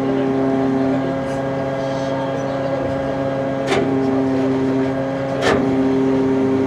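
Car ferry's machinery droning through the hull with several steady tones while the ship berths. The pitch of the drone shifts a little at the start and again at a sharp knock just past halfway, and a second knock comes about two seconds later.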